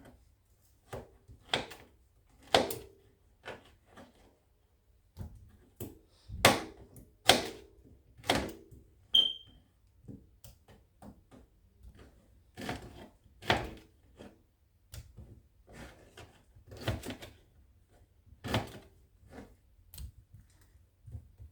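Knife knocking on a cutting board while ingredients are cut up: sharp, irregular knocks, one or two a second, with a pause of a couple of seconds a little before halfway.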